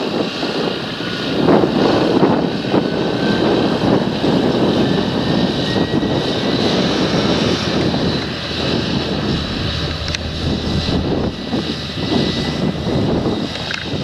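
Fendt 936 Vario tractor's six-cylinder diesel engine working steadily under load as it pulls a nine-furrow Lemken plough through the soil.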